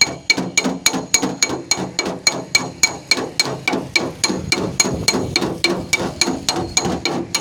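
Rapid, even hammer taps on a car's sheet-metal body panel, about three a second, each with a short metallic ring: paintless dent repair, tapping the dent flat.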